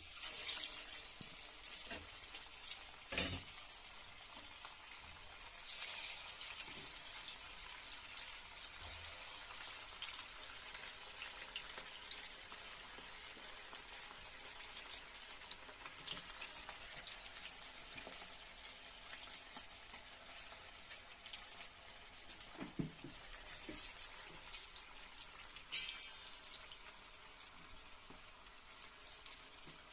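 Marinated chicken pieces deep-frying in hot oil in a steel pan: a steady crackling sizzle that flares up as fresh pieces are dropped in, near the start and again about six seconds in. A sharp knock about three seconds in.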